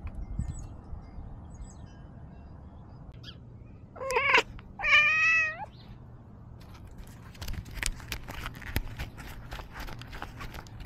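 A cat meows twice about four seconds in: a short wavering call, then a longer one that dips slightly in pitch. A run of light ticks and taps follows.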